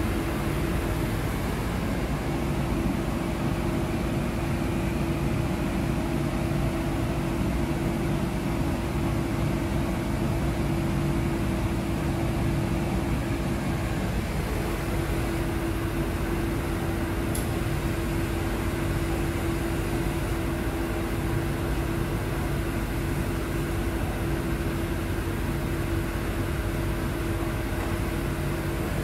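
Steady machine hum with a low steady tone running through it.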